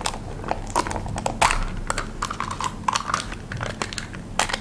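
Foil lid being peeled off a small plastic yogurt cup: a run of irregular small clicks and crinkles as fingernails pick at the lid and the cup.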